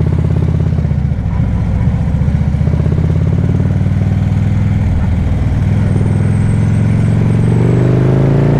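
Harley-Davidson touring motorcycle's V-twin engine running at low speed with its lumpy, pulsing beat. It picks up slightly near the end as the bike pulls away.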